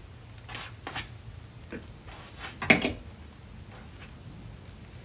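Soft, scattered noises from a dumbbell workout: about five short puffs and knocks, the loudest a little under three seconds in.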